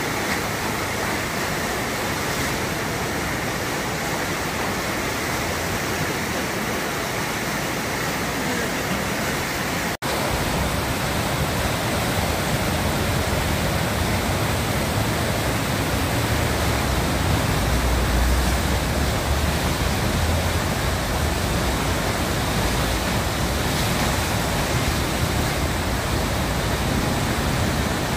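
Whitewater of the Eisbach standing river wave rushing steadily. The sound drops out briefly about ten seconds in and returns with more low rumble.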